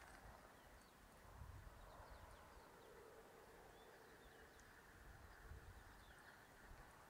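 Near silence outdoors: a faint low rumble of wind on the microphone, with scattered faint, short, high chirps that drop in pitch.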